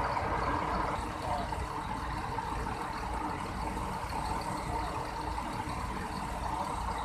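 Diesel bus engine idling with a steady low rumble.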